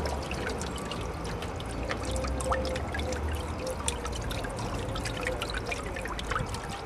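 Water trickling and pouring from the cups of a turning garden water wheel made from bicycle wheels, with many small drips and splashes scattered through a steady flow. A low steady hum runs underneath.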